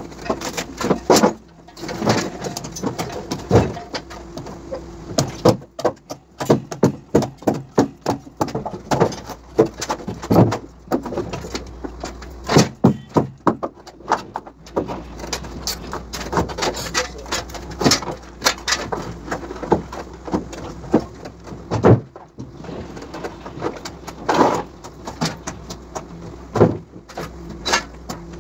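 Knocks and clanks of concrete wall formwork being stripped and handled, with runs of rapid knocking, over a steady hum.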